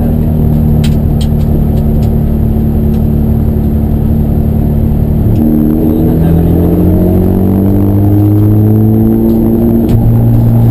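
Race car engine running at steady revs, then from about five seconds in its pitch climbs steadily as it accelerates, dropping with a gear change near the end.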